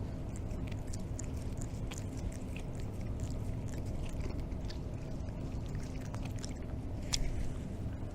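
Cats chewing grilled hagfish: scattered small wet clicks and smacks, with one sharper click about seven seconds in, over a steady low rumble.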